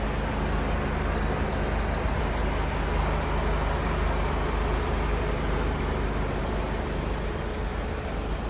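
Volkswagen Mk7 Golf GTI's 2.0-litre turbocharged four-cylinder engine running at a steady speed. The engine has a misfire.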